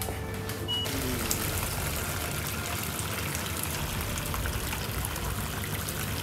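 Liquid pouring steadily from a pot through a metal strainer into a large stainless-steel bowl, splashing and trickling, starting about a second in.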